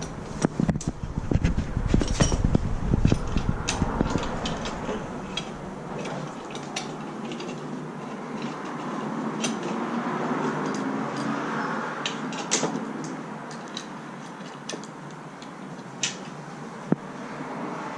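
Scattered metallic clinks and knocks of hand tools working on a lawn mower to take off its blade, with a low rumble over the first five seconds or so.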